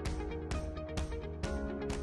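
Background music with a steady beat: pitched notes struck about twice a second over held tones.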